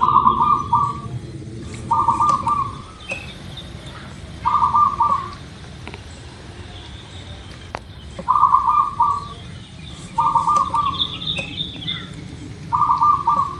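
Zebra dove (perkutut) singing: six short bursts of rapid, staccato cooing notes, spaced a few seconds apart. Fainter high chirps of other small birds sound in the background.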